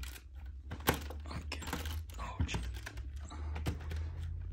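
Hard plastic clicks and light rattles of Lego bricks as a hand handles the brick-built engine, with one sharp click about a second in.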